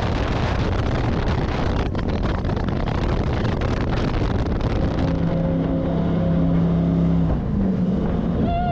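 Twin V8 engines of a 600 hp jet boat running under way, mixed with a loud rush of wind on the microphone. A steady engine tone comes through about halfway in and dips briefly near the end.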